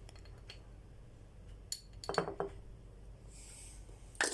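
A metal spoon clinks against a dish several times in short, separate clicks, some of them ringing briefly, as spice is spooned out.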